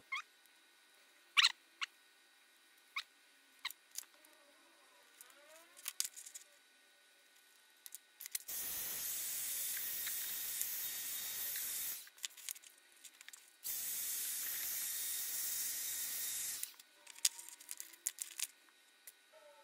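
Hot-air heat gun blowing in two steady hissing runs of about three seconds each, about half-way through and again a little later, shrinking heat-shrink sleeving onto a sensor cable. Light clicks and taps from handling the cable and plastic bracket come before, between and after.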